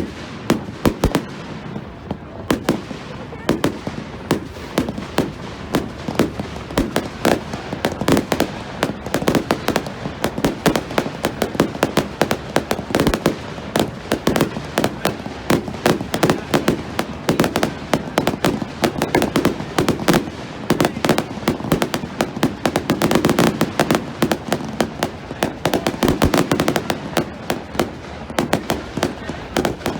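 Fireworks going off in a dense, unbroken barrage: sharp bangs and crackling pops, several a second.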